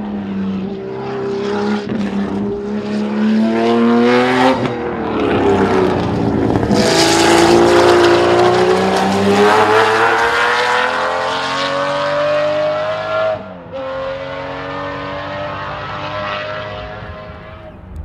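Jaguar XJS racer's 5.3-litre V12 screaming as it accelerates through the gears. Its pitch climbs, then drops back at each upshift, about two, four and a half and thirteen seconds in. It is loudest as the car passes about halfway through, then fades as the car pulls away.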